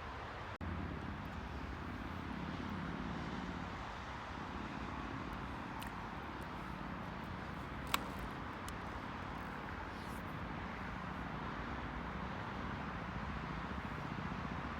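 Steady outdoor background noise with a low rumble, typical of vehicle traffic, briefly cutting out just after the start; a single sharp click about eight seconds in.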